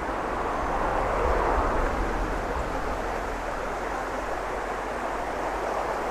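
Fast-flowing river in flood after heavy rain, its brown water rushing and churning through trees: a steady rushing noise that swells a little, with a low rumble, about a second in.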